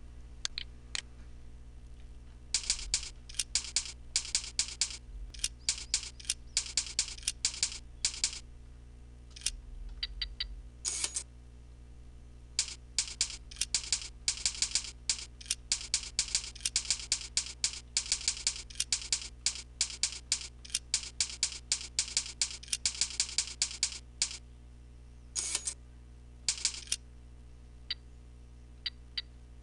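Computer keyboard keys and mouse buttons clicking in irregular fast runs with short pauses, over a steady low electrical hum.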